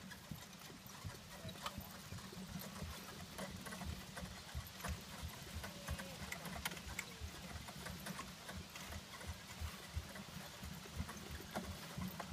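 Hoofbeats of a horse trotting on grass, with light clicks and rattles from the four-wheeled carriage and harness it is pulling.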